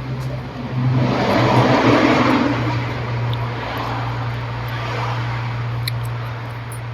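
A vehicle passing by, swelling up and fading over about two seconds, over a steady low hum.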